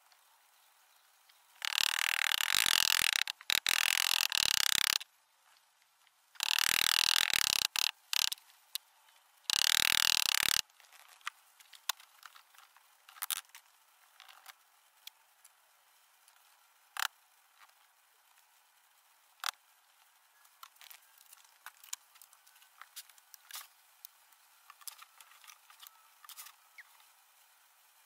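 Gloved hands working Petrobond oil-bonded moulding sand in a wooden casting flask: three stretches of loud rubbing and scraping across the sand surface in the first ten seconds or so, then scattered small taps and clicks of handling.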